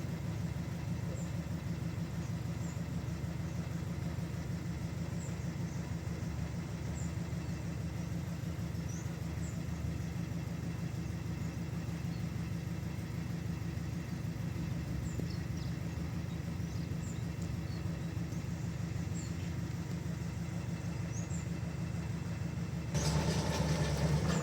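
Sawmill machinery running with a steady low drone. About a second and a half before the end it suddenly gets louder and fuller.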